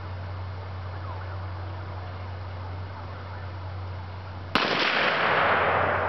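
A single sharp blast about four and a half seconds in as the vacuum cleaner is blown up, followed by a loud rushing noise that fades away over a second or two.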